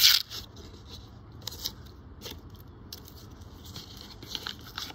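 Paper coin-roll wrapper crackling loudly as it is handled and opened, then faint scattered crinkles and small clicks.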